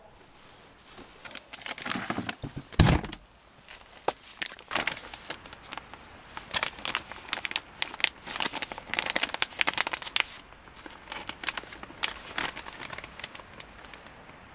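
A clear plastic bag crinkling and rustling as it is handled and opened, in many short crackles. There is a single loud thump about three seconds in.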